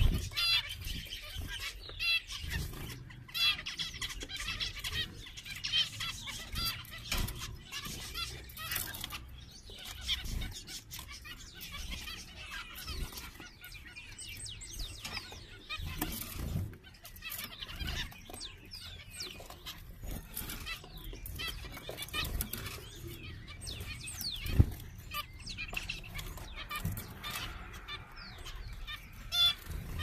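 A colony of zebra finches calling, many short chirps overlapping throughout, with occasional brief low thumps, the loudest about 25 seconds in.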